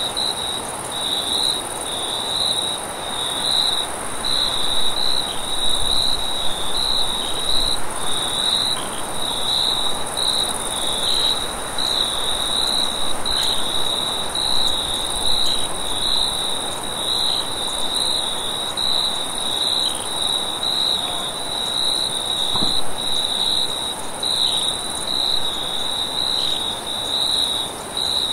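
Crickets chirping in a continuous pulsing trill at one high pitch, with a fainter, higher insect hiss above it, over a steady rush of wind.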